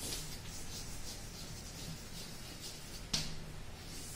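Chalk writing on a blackboard: a run of short scratching strokes, with one sharper tap about three seconds in.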